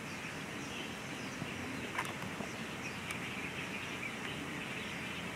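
Birds chirping over a steady outdoor background hiss, with one sharp click about two seconds in.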